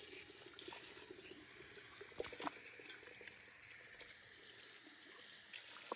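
Cold water running softly from a kitchen tap onto raw chicken pieces in a stainless steel pot as they are rinsed by hand.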